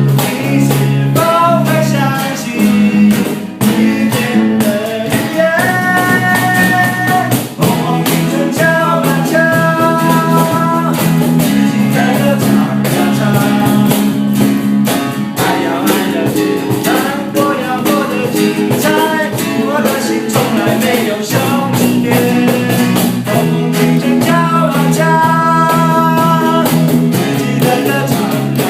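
A band playing a rock song: guitars and bass over a drum kit, with a held melody line on top.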